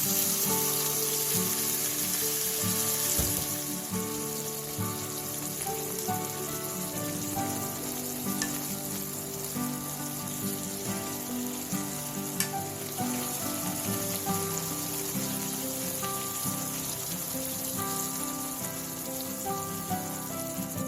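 Food sizzling as it fries in a pan, loudest for the first few seconds and then softer, with a few light clicks. Gentle background music plays throughout.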